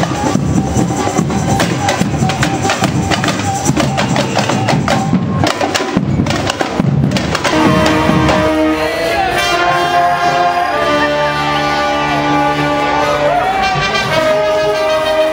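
Music: fast, dense drumming and percussion, giving way about halfway through to long, held melodic notes.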